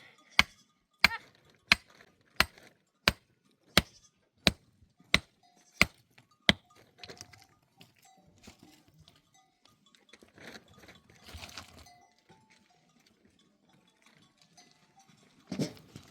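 About ten sharp blows of something being struck, evenly spaced at roughly three every two seconds, stop about six seconds in. After that, livestock bells tinkle faintly among the flock of sheep and goats.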